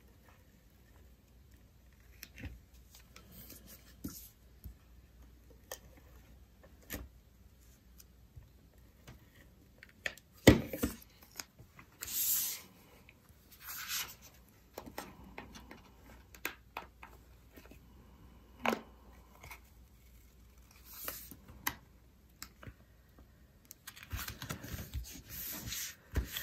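Cardstock and acetate layers handled by hand: sliding, rubbing and pressing down as they are stuck together, with scattered light taps and clicks. A sharp knock about ten seconds in, a short hissy scrape soon after, and busier rustling near the end.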